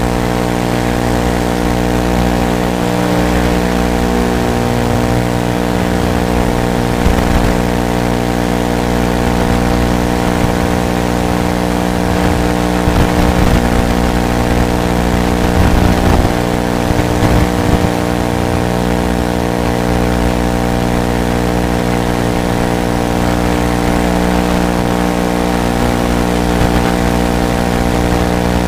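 Tweaker 180 FPV racing quadcopter in flight, heard through its onboard camera feed: a steady electric buzz of motors and hum, made of many fixed tones over a noisy hiss.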